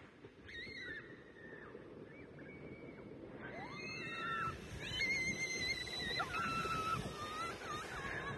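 Distant, high-pitched whoops and squeals from tubers sliding down the hill. The long, wavering cries start about halfway through and come over low background noise.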